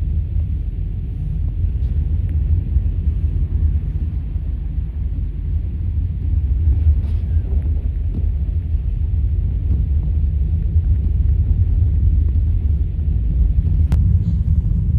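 Steady low rumble of a car on the move, heard from inside the cabin, with a faint tick or two.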